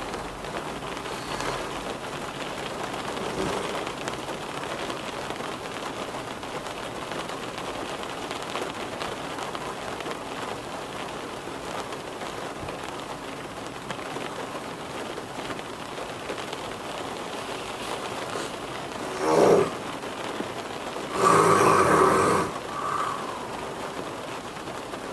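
Steady rain with a man snoring, the snores of a sleeper with untreated sleep apnea. Over a long stretch there is only rain, then a short loud snore comes about 19 seconds in and a longer loud one just after.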